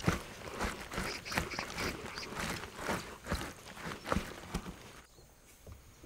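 Hands working napa cabbage and seasoning in a plastic basin for kimchi: irregular rustling with small clicks and knocks, dying down about five seconds in.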